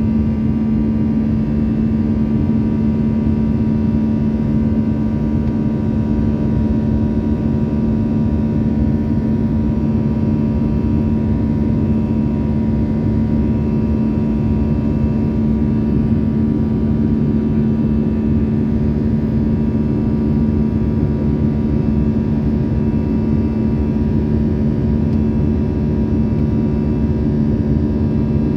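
Steady cabin noise of a jet airliner after takeoff: a constant engine and airflow rumble with a strong, unchanging low hum and a fainter higher tone. This is the abnormal noise a passenger noticed in the cabin.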